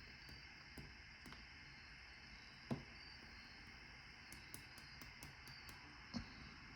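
Near silence with a few faint clicks and two soft knocks: small parts of a padlock being handled as it is taken apart.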